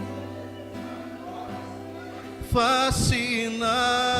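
Live worship music: sustained instrumental chords hold under a pause in the song, then about two and a half seconds in a voice comes in loudly, singing a held note with vibrato.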